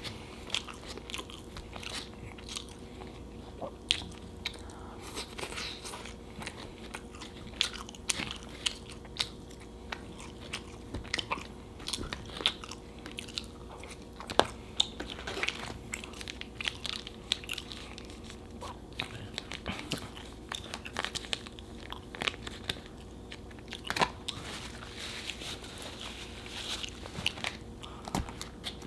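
Close-miked mouth sounds of a person eating a burger and fries: chewing and biting with irregular wet clicks and smacks throughout, over a faint steady hum.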